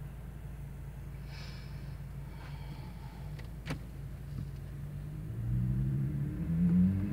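Car engine idling, heard from inside the cabin, then revving up with rising pitch from about five seconds in as the car moves off. A single sharp click comes about halfway through.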